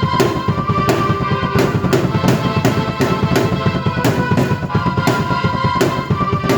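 Drum kit and keyboard played together in an upbeat instrumental. Bass drum and snare keep a steady, driving beat under held keyboard chords and melody.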